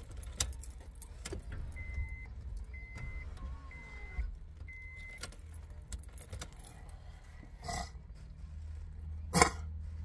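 Clattering and knocks of things being handled inside a car over a low steady hum, with an electronic beep sounding four times, about once a second, near the start. A sharp knock near the end is the loudest sound.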